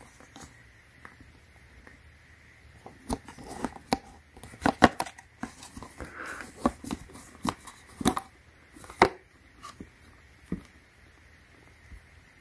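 Handling noise from a Nike jump rope: scattered clicks and knocks as the handles bump together and the end cap is worked off, with light rustling of the cable. The sharpest knocks come near the middle and again nearly three-quarters through.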